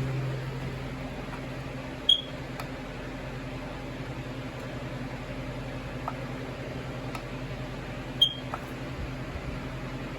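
Smoke alarm under test giving only a short, high chirp, once about two seconds in and once again about six seconds later, instead of sounding its full alarm: the alarm doesn't work. A few faint clicks and a steady low hum lie underneath.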